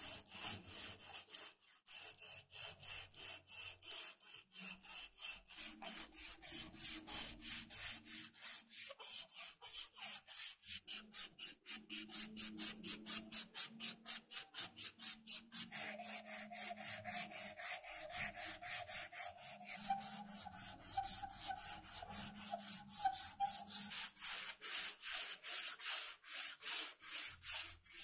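A strip of sandpaper is pulled back and forth around the neck of a wooden plane knob, a rapid even scratching at about three or four strokes a second. For several seconds past the middle a thin steady tone rides along with the strokes.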